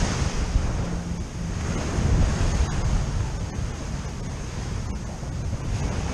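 Ocean surf washing onto the shore, with wind rumbling on the microphone; the wash swells briefly about two seconds in.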